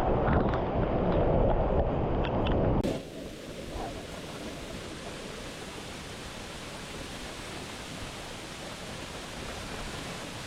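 Waterfall's rushing water, with wind buffeting the microphone for the first three seconds or so. Then a sudden cut to a quieter, steady rush that is brighter in tone.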